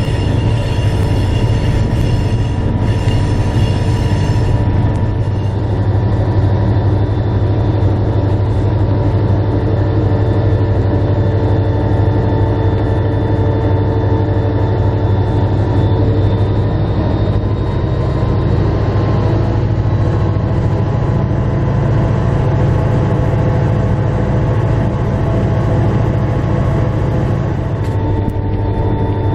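Diesel locomotive of a moving passenger train running steadily, heard close up from the outside of the locomotive: a loud, continuous low engine drone over the noise of the wheels on the rails. A high squeal rings over it for the first four seconds or so and then fades out.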